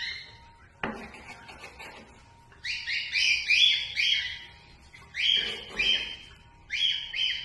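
An animal crying out in repeated runs of short, high-pitched notes, four bursts in all, with a single knock about a second in.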